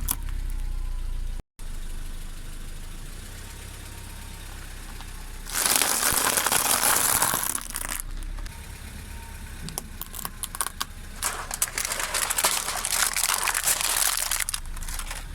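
A car engine idling, with two long spells of crunching and crackling as the tyres roll over brittle objects and crush them. The first spell comes about five seconds in and lasts a couple of seconds. The second starts about eleven seconds in and runs almost to the end.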